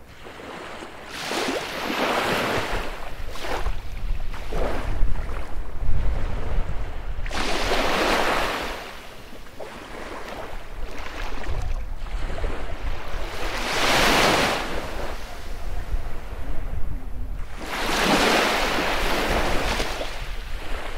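Baltic Sea waves breaking and washing up a beach. About five surges in turn swell into a loud hiss and then fall away, with a low wind rumble on the microphone underneath.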